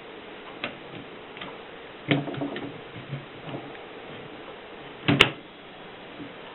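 Mercedes 6 manual typewriter worked by hand: separate mechanical clacks of type striking, spaced irregularly with a short cluster about two seconds in, and one loud, sharp clack about five seconds in.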